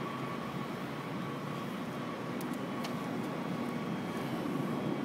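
Heavy machinery running steadily, a constant engine rumble with a faint steady whine over it and a few light clicks about halfway through.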